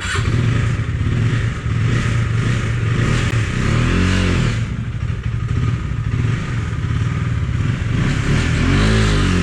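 Motorcycle engine running as the bike rolls slowly in low gear over stone paving, revving up and back down twice, about four seconds in and again near the end.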